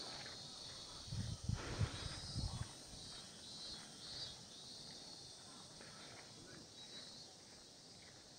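A chorus of cicadas buzzing in a steady high drone, with a few low thumps about a second or two in.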